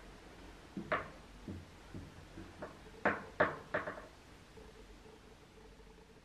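Several knocks and clunks, spaced out at first and then three louder ones in quick succession about three seconds in.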